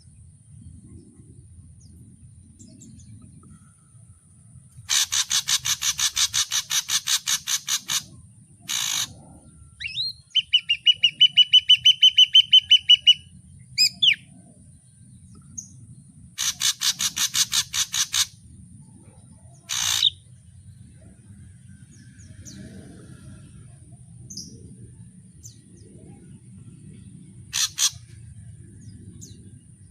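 Ashy drongo singing a varied sequence. It gives two bursts of rapid, harsh, repeated notes, several single calls, and, about a third of the way in, a fast ringing trill of clear whistled notes, the loudest part.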